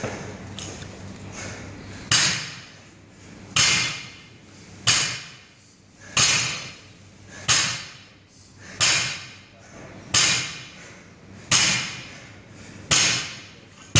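Barbell loaded with bumper plates set down on the gym floor at the bottom of each deadlift rep, a sharp clank with a short rattle about every 1.3 seconds, nine times.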